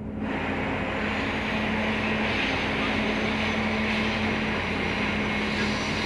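Komatsu hydraulic excavator's diesel engine running steadily under load as the bucket digs through wet mud, a constant drone with a steady hum that comes up in level just after the start.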